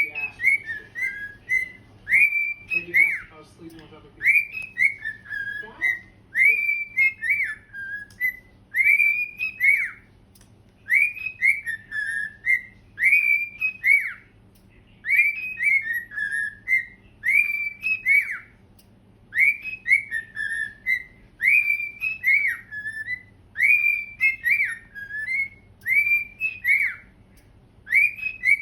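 Pet cockatiels whistling, singing the same short tune over and over: a phrase of a few rising-and-falling notes, repeated every couple of seconds with brief pauses between.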